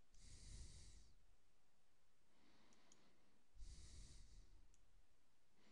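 Near silence: two faint breaths into the microphone, near the start and about three and a half seconds in, with a few faint mouse clicks between and after them.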